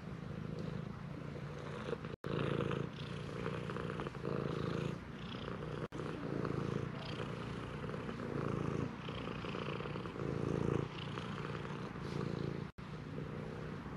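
Domestic cat purring while being stroked, a deep rumbling purr that swells and eases with each breath, like an engine running. It breaks off for an instant three times.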